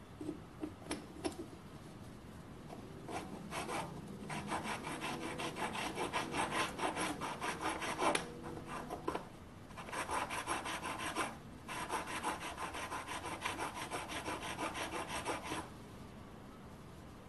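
Steel stepped drill bit being honed on an oiled sharpening stone: repeated scraping strokes of the cutting edges across the stone, sharpening them. A few light clicks come first; the strokes start about three seconds in, pause briefly partway through and stop near the end.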